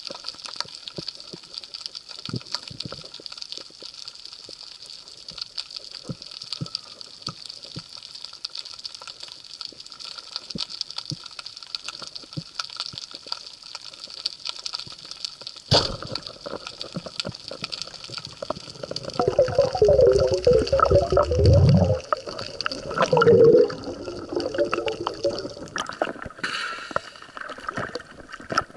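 Underwater ambience heard through a camera housing: a steady hiss with scattered small clicks. About 16 seconds in comes one sharp, loud crack, the speargun firing, followed by heavy bubbling and gurgling water, and surface splashing near the end.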